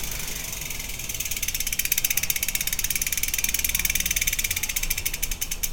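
Freehub of a Superteam Power 2019 carbon wheel clicking rapidly as the wheel spins freely, a fast even buzz of pawl clicks that begins to slow near the end.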